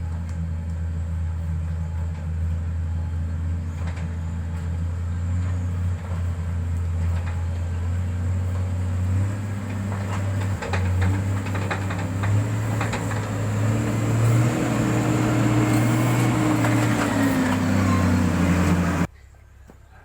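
Diesel engine of heavy road-construction equipment running steadily under load, its pitch rising somewhat in the later seconds, with some scattered clicks and knocks. The sound cuts off suddenly near the end.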